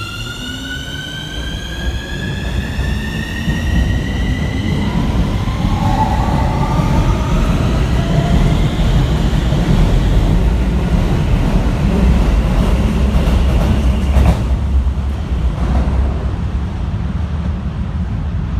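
Electric commuter train's traction motors whining, rising in pitch over the first few seconds as it picks up speed. Then the rumble of the cars running along the rails grows louder, with a sharp click about fourteen seconds in.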